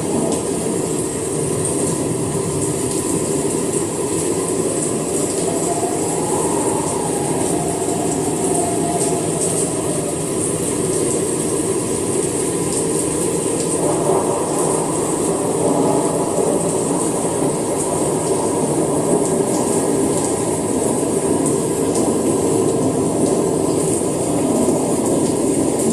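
Steady, heavy summer rain.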